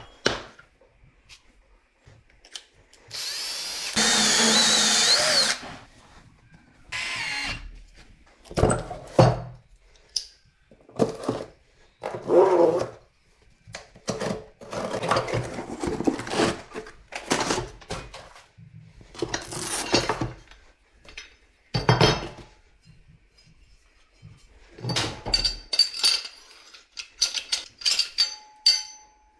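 Knocks, clanks and rattles of tools and copper pipe being handled while the gas pipe is fitted, with a power tool running for about two seconds around four seconds in.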